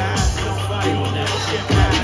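Hip hop backing beat played loud over a live venue PA, with a heavy bass line and kick drum.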